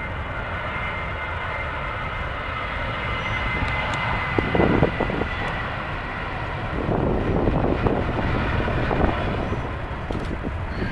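Boeing 737-700's CFM56 turbofan engines at takeoff power as the airliner accelerates down the runway: a steady rushing jet noise with a high fan whine over it. It grows louder and rougher, with crackling, from about four seconds in as the jet passes.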